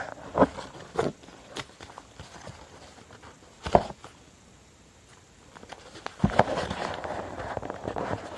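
A sheet of A5 copy paper being folded by hand into a paper airplane against a tabletop: rustling and crisp creasing. There are sharp knocks where the paper and fingers press on the table, the loudest two a little under 4 s in and about 6 s in, with a quiet stretch between them.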